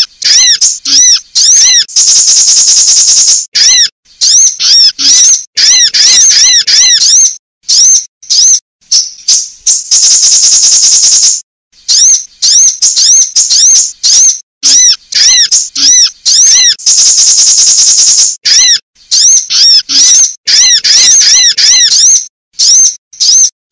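Sunbird calls, described as a female sunbird's lure calls, played loud. Runs of quick, high arched chirps are broken about every seven to eight seconds by a long, buzzing trill lasting about a second and a half.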